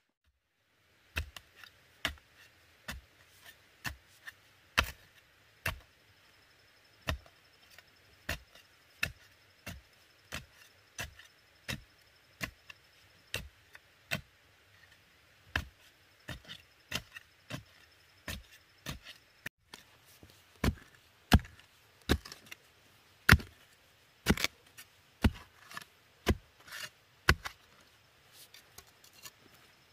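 A long-handled digging tool striking down into dry, stony soil, about one sharp thud a second, as a hole is dug and loosened by hand. The strikes come a little faster and harder in the second half.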